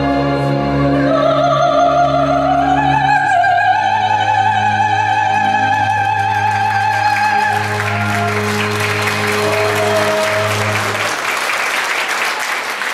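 Soprano voice rising to a high closing note of a Korean art song and holding it with vibrato over instrumental accompaniment; the note ends about halfway through. Audience applause then swells while the accompaniment's final chord dies away.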